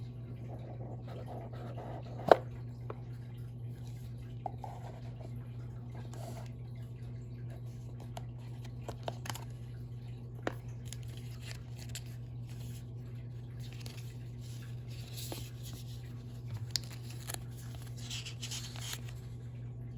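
AirPods box and packaging being handled and opened: scattered small clicks and taps, one sharp click a couple of seconds in, and soft rustling and scraping near the end, over a steady low hum.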